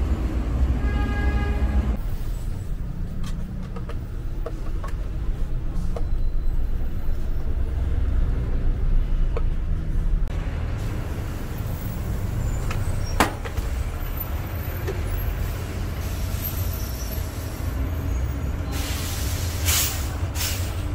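Steady low rumble of road traffic with buses passing. There is a brief pitched tone about a second in, a sharp click about two-thirds of the way through, and a short hiss shortly before the end.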